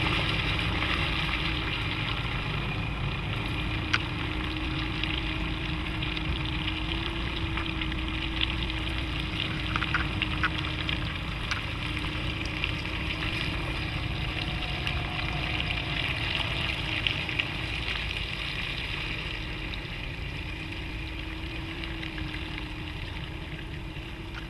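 Nissan Navara NP300's 2.3-litre four-cylinder turbodiesel running at low revs while the pickup creeps over a muddy track, with tyres crackling over wet ground; the sound fades slowly as the truck pulls away.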